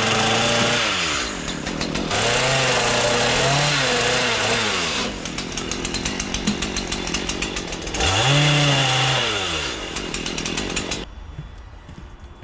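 Chainsaw carving wood: the two-stroke engine runs at full throttle, eases off and revs back up several times as it cuts, then falls away near the end.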